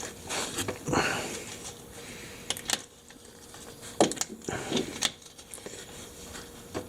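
Irregular clinks, knocks and scraping of hand tools and metal parts being handled while fitting a part on an ATV, with a few sharper knocks among them.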